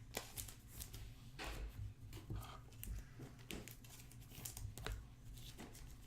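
Faint crinkling and scattered small clicks of trading cards and their plastic packaging being handled.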